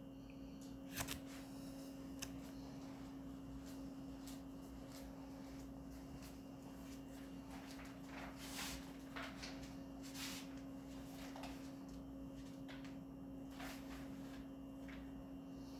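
Faint room tone: a steady low electrical hum with scattered small clicks and rustles, the loudest about a second in.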